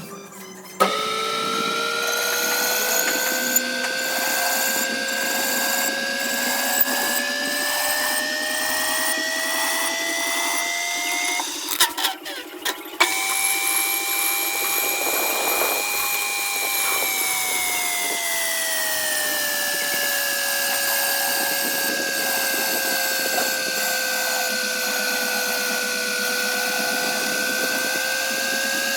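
Electric power-tool motor running with a steady whine that slowly climbs in pitch. It cuts out briefly about twelve seconds in with a few clicks, then starts again, sinking slowly in pitch and rising again near the end.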